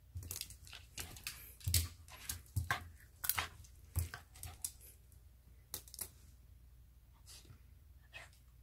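A Pomeranian–Spitz mix dog tussling with a plastic ballpoint pen on a wooden floor: a quick run of clicks, knocks and scrapes from claws, teeth and pen over the first few seconds, then only a few scattered clicks.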